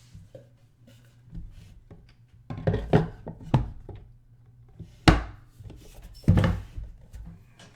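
Trading cards and their packaging being handled on a table: a run of irregular knocks and thuds with some rubbing, the loudest about five seconds in, over a faint steady low hum.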